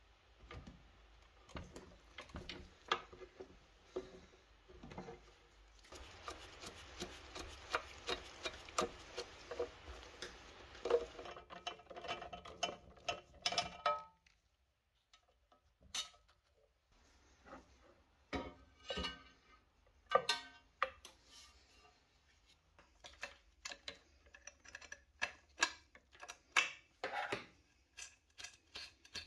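Metal tools and machine parts being handled during disassembly: scattered clicks and clinks, then a dense stretch of rattling and scraping as a socket driver works a bolt inside the sheet-metal case. After a short pause come more sharp clicks and taps as the wiring is handled at the electric motor.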